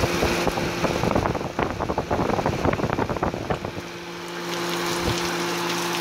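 Steady electric motor hum from the radiator cooling fan of a homemade water-cooled air conditioner, with water splashing from its outlet hose. An irregular crackle takes over between about one and four seconds in.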